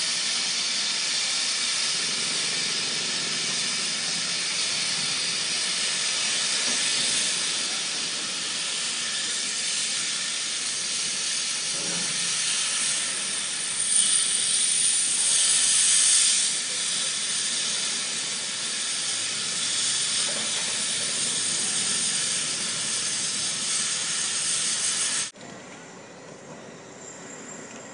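Construction-site machinery making a loud, steady hissing noise. It swells for a couple of seconds a little past the middle, then cuts off abruptly near the end.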